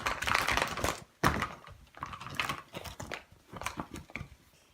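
Hands rummaging through a bin of blind-bag toy packets, the plastic wrappers crinkling and rustling, with a sharp thunk a little over a second in.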